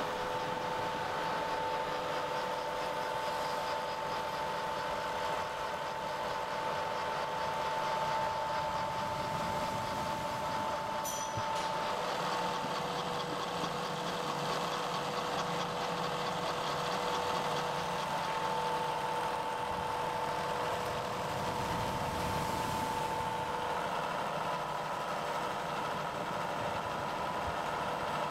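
Vertical knee milling machine running, its end mill cutting a bronze bar: a steady machine tone over the noise of the cut.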